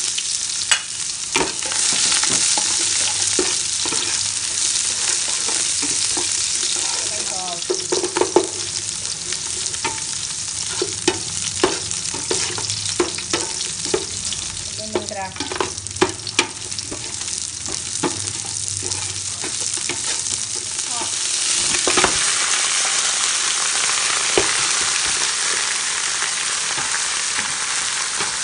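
Garlic, green onion and ginger sizzling in hot oil in a stainless steel stockpot, stirred with a metal ladle that clicks and scrapes against the pot. Late on, pork bones go in with a thud and the sizzling grows louder.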